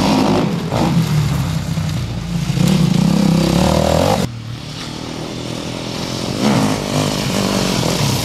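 Enduro dirt bike engines revving and accelerating as the bikes ride past on a gravel track. The sound cuts off abruptly about four seconds in and picks up on another bike, quieter at first, then louder with rising revs.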